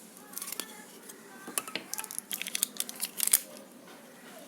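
Packaging being handled: a quick run of sharp clicks and crinkles, thickest and loudest between about two and three and a half seconds in.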